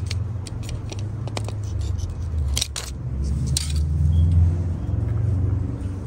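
Hands picking a small offset and dry leaves off an Echeveria cupido rosette: a scatter of crisp clicks and rustles, the sharpest a pair about two and a half seconds in and another about a second later. A steady low rumble runs underneath.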